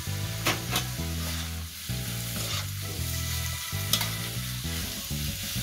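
Stir-frying shrimp and bamboo shoots in a steel wok: a metal spatula scrapes and stirs the food over steady sizzling, with a few sharp clacks of the spatula on the pan.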